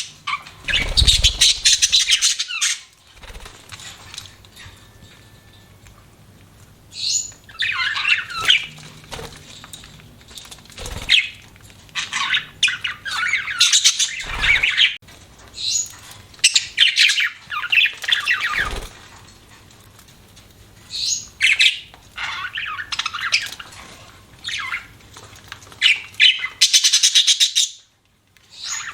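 Budgerigar chattering and chirping in bouts of rapid warbled notes, each a second or two long, with short pauses between.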